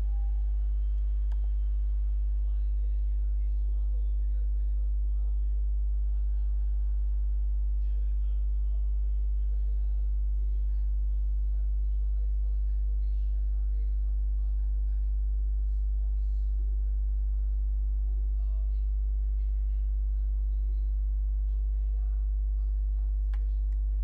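Steady electrical mains hum at about 50 Hz with a stack of even overtones, picked up on the recording's microphone line. Two faint clicks, about a second in and near the end.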